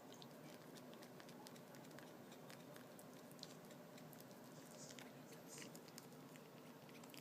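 Faint, irregular wet clicks of cats licking each other's fur behind the ears, over a low steady room hum.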